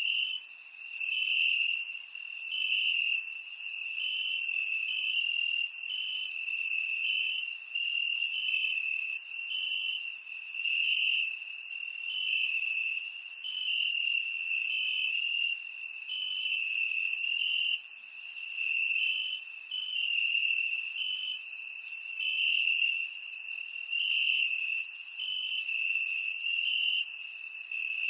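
Crickets chirping in a continuous high-pitched trill, with a second, slightly higher chirp pulsing over it and the whole chorus swelling and fading about every one and a half seconds.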